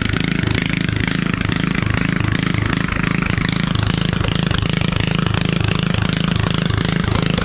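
Sears garden tractor's small engine running steadily, loud, with a rapid even exhaust beat; the exhaust is not yet fitted.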